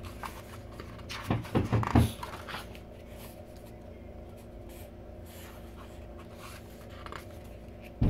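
Pages of a glossy photobook being turned by hand: a quick cluster of paper flaps and rustles about a second and a half in, then quieter handling of the pages and a loose card, over a steady low hum.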